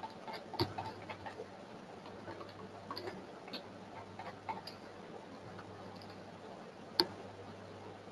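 Faint, irregular clicking of a computer mouse scroll wheel as a web page is scrolled, with one sharper click about seven seconds in, over a steady low hum.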